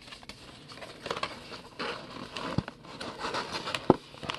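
Hands handling a cardboard trading-card hobby box and its lid: irregular rustling and scraping of cardboard and paper, with a couple of sharp taps.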